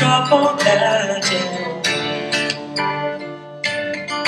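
Acoustic guitar strumming chords in a steady rhythm: the instrumental break between verses of a carol accompaniment.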